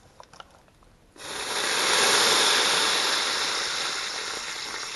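Beef broth poured into the hot inner pot of a Ninja Foodi pressure cooker just used for searing, hissing and sizzling as it hits the browned bottom. It starts suddenly about a second in, is loudest soon after, then slowly dies down.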